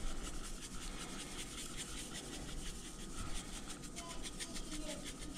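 A hand-held spice grinder being twisted over raw fish pieces, giving a steady run of rapid rasping clicks as the seasoning is ground out.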